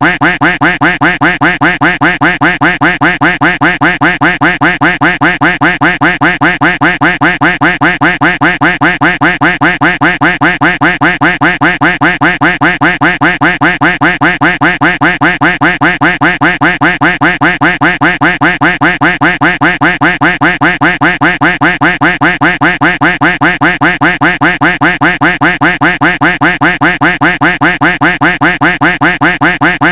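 Duck quack sound effect looped, a rapid, perfectly even string of identical quacks with no pause.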